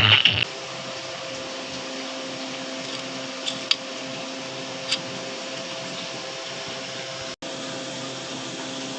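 Music cuts off about half a second in, leaving a 2SC5200/2SA1943 transistor amplifier putting out a steady hiss with a buzzing hum and a few faint clicks: the noise behind its sound problem.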